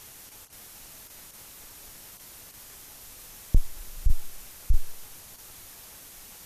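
Steady background hiss, broken a little past halfway by three short low thumps about half a second apart.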